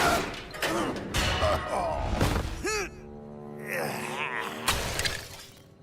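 Cartoon fight sound effects: several sharp thuds and impacts, with short character grunts and groans, over background music.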